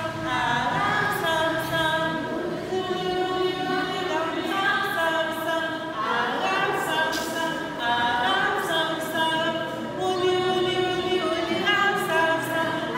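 Group of children singing unaccompanied, a melody of held notes.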